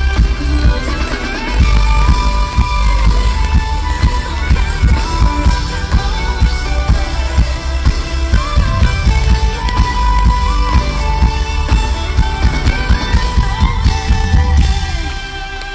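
Live electronic pop music over an arena PA: a violin melody over a heavy bass beat. The music drops away near the end.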